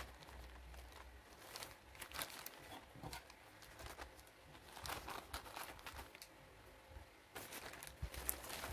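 Plastic courier mailer bag crinkling and rustling in irregular bursts as it is handled and opened.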